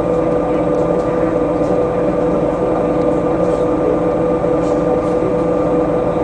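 Den Oudsten Alliance B96 city bus heard from inside the cabin, its engine and ZF automatic drivetrain running at a steady, unchanging pitch with a constant whine.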